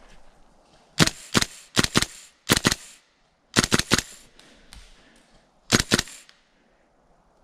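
Airsoft gun firing in about six short bursts and single shots of sharp cracks over five seconds, with pauses between them.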